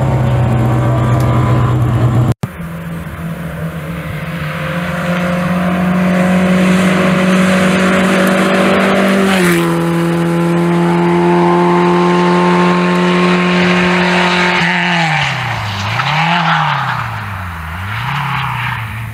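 Simca Rallye rally car engine running hard at high, steady revs. The pitch steps down once about nine seconds in, then dips and climbs back twice near the end as the revs drop and pick up again.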